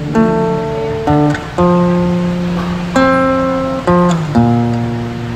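Acoustic guitar strumming a slow chord progression: six chords struck in turn, each left to ring until the next.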